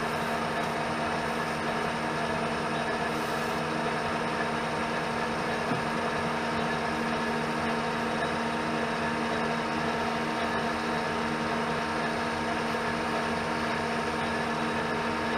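Metal lathe running steadily under power, its chuck spinning, giving an even hum with several steady tones from the motor and gearing.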